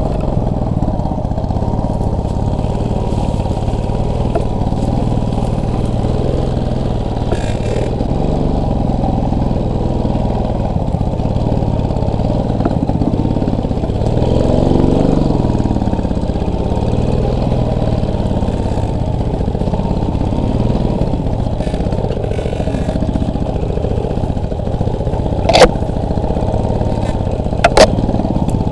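Motorcycle engine running under way, its revs rising and falling with the throttle, with a surge about halfway through. Two sharp knocks come near the end.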